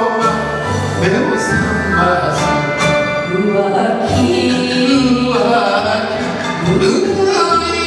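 Enka duet sung by a man and a woman over a karaoke backing track. The man sings at first, and the woman takes up the melody about four seconds in, with gliding, wavering vocal pitches over a steady bass line.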